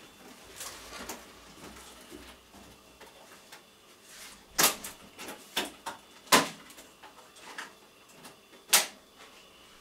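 Off-screen kitchen clatter from cooking: several sharp knocks and clinks of cookware and utensils, loudest in a cluster around the middle and once more near the end, over quiet room tone.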